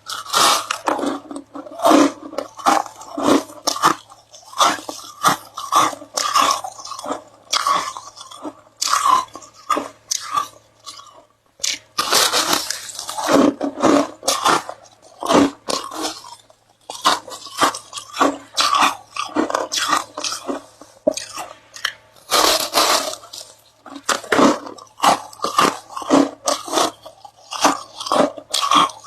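A person biting and chewing ice close to the microphone: rapid, irregular crunches in runs of many strokes, with a brief lull about eleven seconds in. A faint steady low hum lies underneath.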